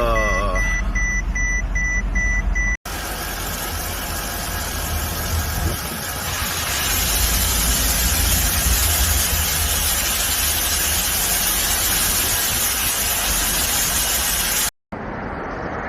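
Mercedes-Benz S500 (W221) V8 engine running at idle, steady, after the no-start has been repaired with a new fuel pump. A rapid high beeping sounds over the first three seconds.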